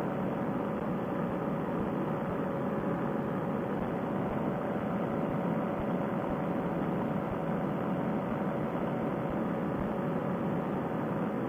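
Paramotor trike's engine and propeller running at a steady cruise in flight: a constant, even drone.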